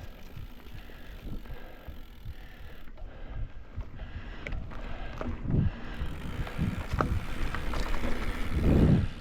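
Mountain bike descending a rough dirt trail: tyres rolling and the bike rattling over the ground, with irregular knocks and heavier thumps over bumps about five and a half seconds in and again near the end.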